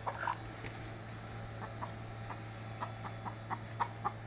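A hen clucking softly in short, separate low calls, more of them in the second half: the contented happy noises of a relaxed chicken. A steady low hum runs underneath.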